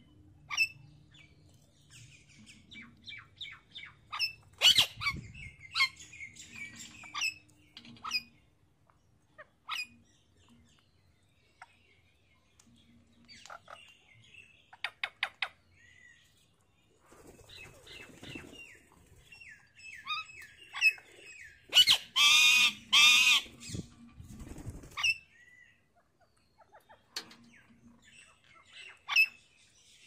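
A flock of rose-ringed parakeets chirping and squawking as they feed on grain, in short scattered calls. The loudest part is a harsh, drawn-out squawking run about two-thirds of the way through.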